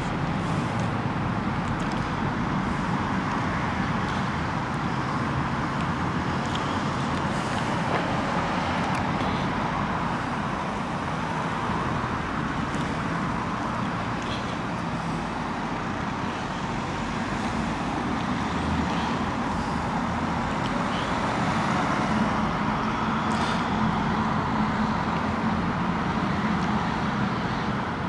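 Steady road traffic noise, a constant rush of passing cars that swells a little louder in the second half.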